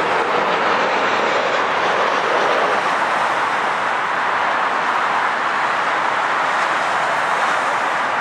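Jet aircraft engines running with a steady, loud noise that neither rises nor falls.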